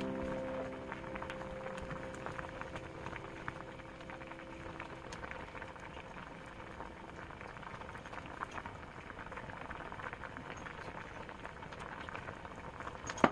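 A pot of chili-paste noodle soup boiling hard, with fast, crackly bubbling and popping, while a wooden spatula stirs through the noodles.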